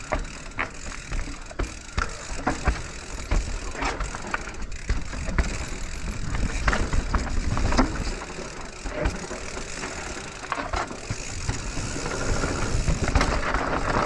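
Radon Swoop enduro mountain bike descending a rough dirt singletrail: tyres rolling over dirt, roots and stones under a steady rushing noise, with frequent sharp clattering knocks and rattles from the bike as it hits bumps.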